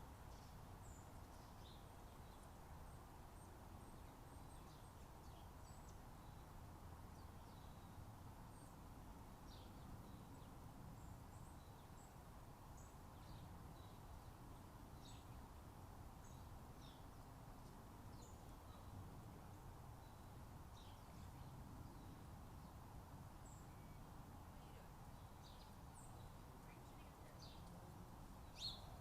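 Faint, scattered short bird chirps over a steady low background rumble, with a couple of louder chirps near the end.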